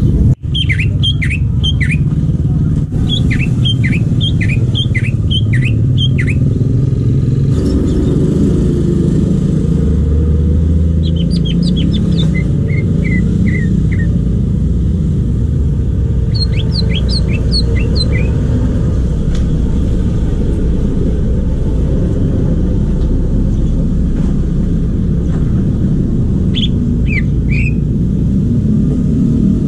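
Greater green leafbird (cucak ijo) singing in short bursts of quick, high notes that sweep downward, five phrases with pauses between them. A steady low rumble runs underneath.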